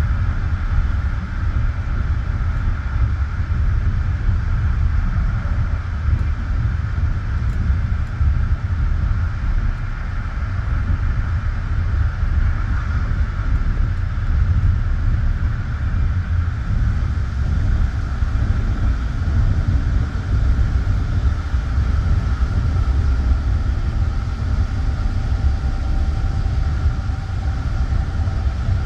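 Passenger train carriage rolling along the track at speed, wheels on rails giving a steady low rumble, heard from inside the carriage.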